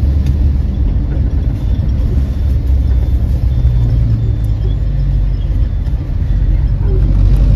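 Steady low rumble of a moving road vehicle: engine and road noise.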